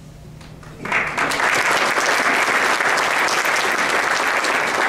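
Audience applauding, starting suddenly about a second in and then continuing steadily.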